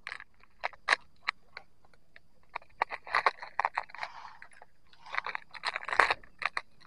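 Close-up handling noise: irregular clicks, scrapes and rustles, busiest about three seconds and six seconds in.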